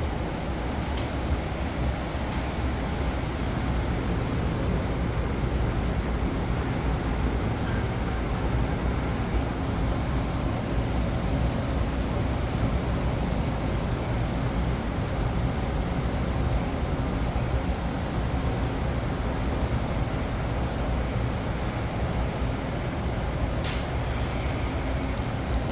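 Steady fan and rushing-air noise from running ventilation, even and unchanging, with a few light clicks about a second or two in and again near the end.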